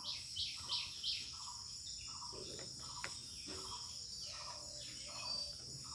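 Crickets chirring steadily in the background, with short scratches of a pen writing on paper.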